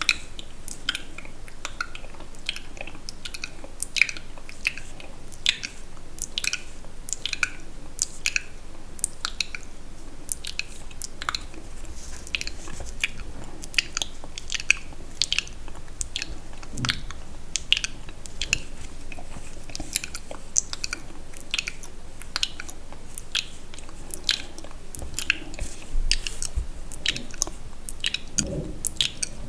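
Wet, sticky mouth sounds close to the microphone: an irregular run of short clicks and smacks from lips, tongue and saliva, a few each second.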